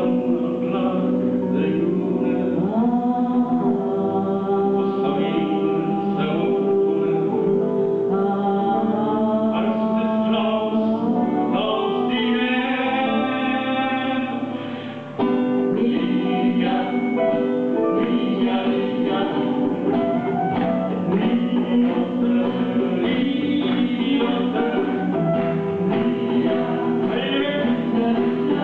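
Live acoustic band music: a man singing over acoustic guitar, archtop electric guitar and djembe hand drum. About halfway through, the sound dips briefly and then cuts back in abruptly.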